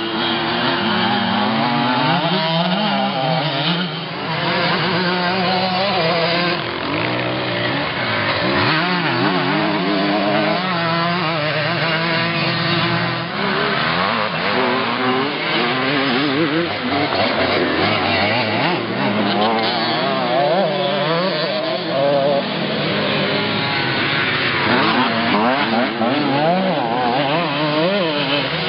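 Several vintage off-road motorcycles racing on a dirt course, their engines revving up and down over one another, with pitch rising and falling as riders accelerate, shift and back off for turns.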